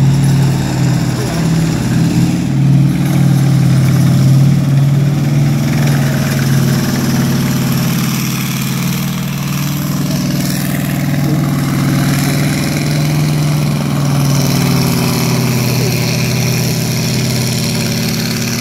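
Early M4 Sherman tank's air-cooled radial aircraft engine running as the tank drives: a loud, steady, deep drone, a little louder in the first half.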